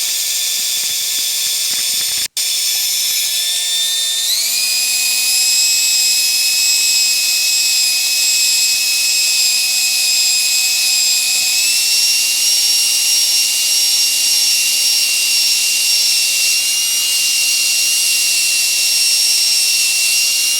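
Electric power tool spinning a soft cotton buffing wheel against a painted aluminum wheel, running as a steady high motor whine. It cuts out for an instant about two seconds in, then its pitch steps up twice as it speeds up, around four seconds and again around twelve seconds.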